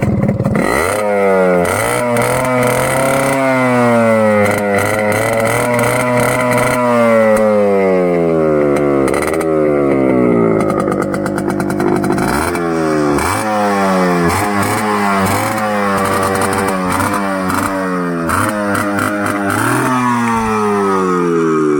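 1989 Yamaha RX100's 98 cc two-stroke single-cylinder engine, heard at the exhaust through its original stock silencer with the baffle still in, revved again and again in neutral. The pitch rises and falls with each throttle blip, with longer revs in the first half and quicker, sharper blips in the second half.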